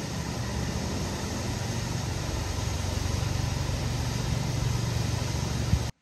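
Waterfall's steady roar of falling water with a deep rumble underneath, growing a little louder, then cutting off suddenly just before the end.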